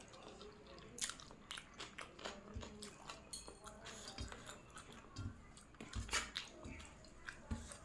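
Close-up eating sounds: a person chewing and biting into chicken biryani, with wet smacking and crunchy clicks at an uneven pace.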